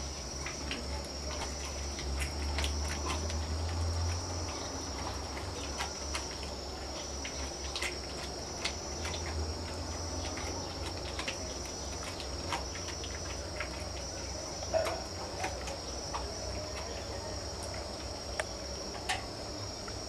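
Crickets trilling steadily at a high pitch over a low hum, with scattered short clicks from a leopard feeding at a metal basin of water.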